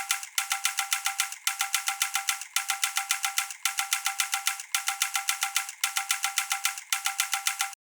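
Sound-effect sample of rapid metallic ringing, like an electric alarm bell. It rings in bursts about a second long with short breaks, about seven times, and cuts off just before the end.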